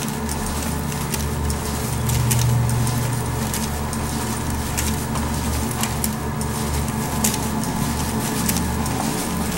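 Handheld camera carried at a walk down a carpeted hallway: uneven low rumble from handling and steps over a steady hum, with faint irregular clicks.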